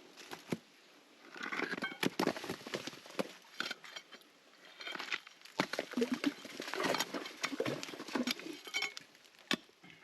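Irregular scraping and knocking of hand tools working through dirt and stone, in short clusters of clicks and scrapes.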